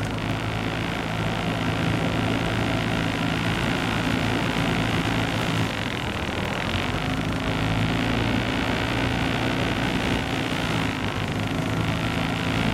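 Small boat's outboard motor running steadily at low speed, its note fading briefly about six seconds in and again near ten seconds.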